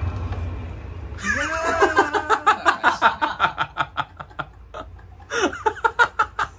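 Laughter in quick, evenly repeated bursts: a long run starting about a second in, and a shorter one near the end. A low hum comes before the laughter.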